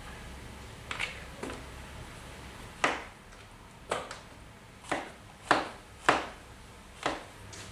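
A series of about eight sharp knocks or clacks at uneven intervals, each dying away quickly, the loudest two a little after the middle.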